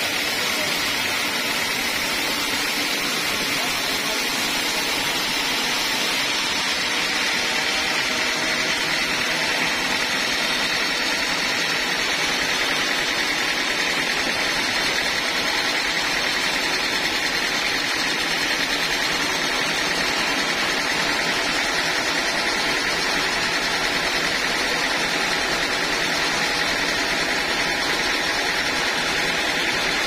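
Band sawmill running steadily as its blade saws lengthwise through a teak log, a loud, even machine noise with a steady whine from the blade.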